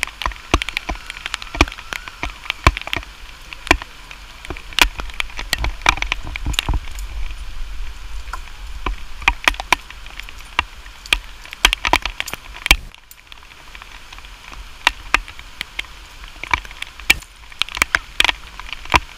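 Irregular clicks and knocks over a low wind rumble during a zipline ride. The rumble and knocks drop away briefly about 13 seconds in.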